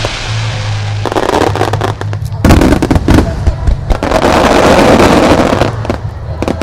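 Starmine fireworks display: many shells bursting in rapid succession with sharp bangs and crackle. Dense clusters of loud bursts come about two and a half seconds in and again from about four to five and a half seconds in.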